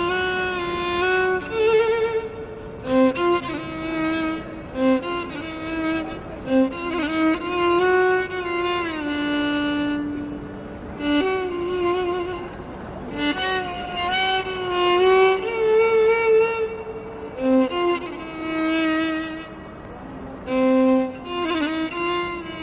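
Background music: a solo violin playing a slow, mournful melody in phrases of held notes with vibrato and sliding between pitches.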